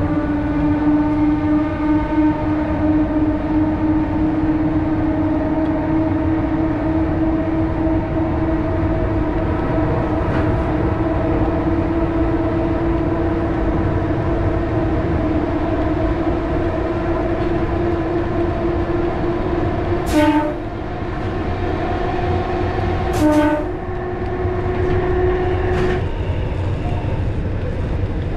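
Vintage electric train running, its traction motors whining steadily over the rumble of the running gear, the whine creeping slowly up in pitch. Two short horn blasts sound about 20 and 23 seconds in.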